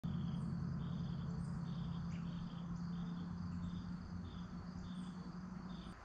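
Crickets chirping outdoors in short, repeated chirps, about two a second, over a steady low hum that cuts off at the very end.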